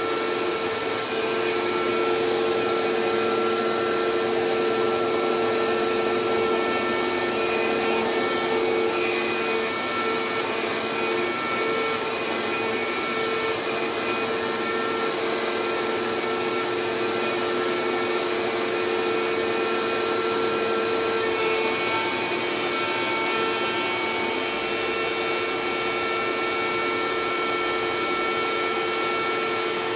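CNC router with a DeWalt router as its spindle, running and milling a carbon fiber sheet under a dust-extraction shroud. It makes a steady motor whine over a constant rushing hiss from the spindle and the suction.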